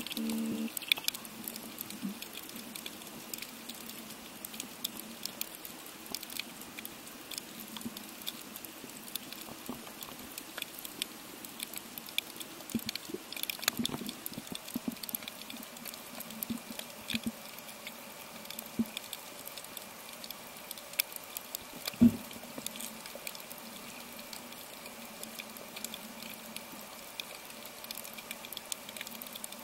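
Underwater reef ambience: a steady crackle of fine, fast clicks, the snapping-shrimp crackle of a tropical reef. There is a faint steady hum under it and one louder knock about three-quarters of the way through.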